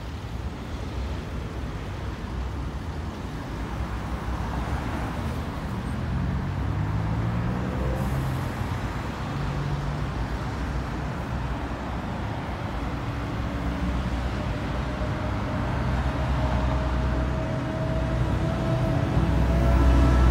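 Road traffic on a busy multi-lane city street: cars, vans and buses passing with steady engine and tyre noise. One vehicle's engine rises in pitch about six seconds in, and the traffic grows louder toward the end.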